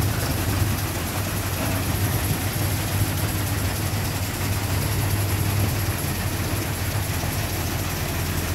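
Paddy-cleaning blower fan machine and its loader conveyor running steadily: a constant low hum over an even rushing noise of air, with a faint high whine.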